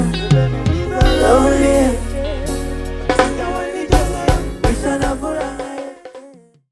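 Live band music with a singer's wordless vocal lines over bass and drums. The bass drops out partway through, leaving a few drum hits before the music fades out near the end.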